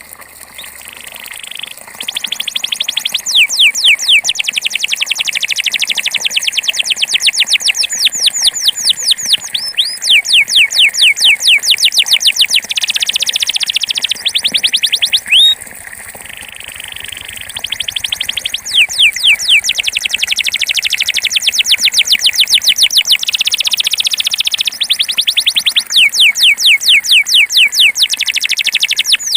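Belgian canary singing a 'campainha' (bell) song: one rapid trill of repeated high, downward-sweeping notes after another, each tour at its own speed, with a softer passage near the start and another about halfway through.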